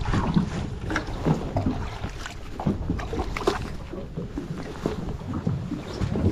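Water splashing and sloshing at the side of a boat as hands work in it over the gunwale, with scattered short knocks and a steady low rumble of wind on the microphone.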